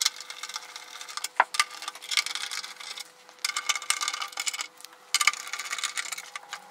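Ratchet clicking in four short runs of rapid ticks, undoing the Allen bolts that hold a motorcycle windscreen.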